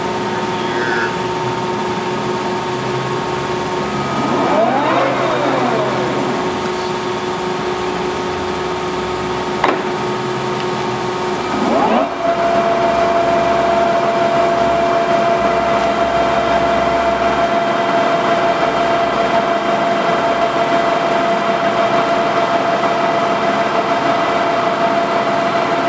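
Tarnow engine lathe running under power, a steady mechanical whine with several tones. About four to six seconds in, the pitch sweeps up and back down. About twelve seconds in it climbs to a new, higher steady whine: the spindle is running at a different speed.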